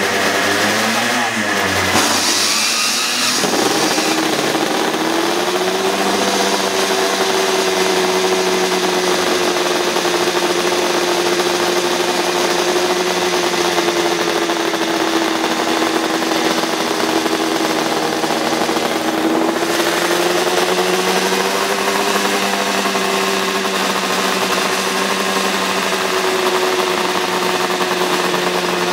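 Kawasaki KR500 racer's two-stroke square-four engine running just after start-up, revved up and down a few times in the first seconds. It then settles to a steady fast idle with small rises and falls in revs.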